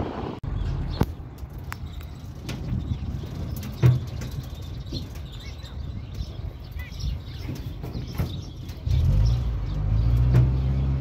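Vehicle engine running at low speed, a steady low rumble that grows louder near the end, with a few sharp knocks, the loudest about four seconds in, and faint bird chirps.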